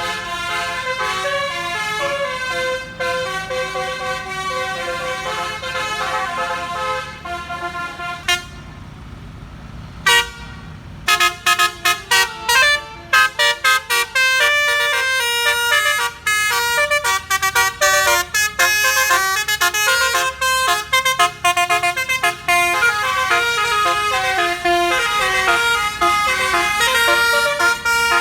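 Bus basuri telolet horn, a multi-trumpet horn playing a melody of loud stepped notes. About eight seconds in it stops and only a hazy rush of passing traffic is left; about ten seconds in it starts again with a string of short toots and goes on into another tune.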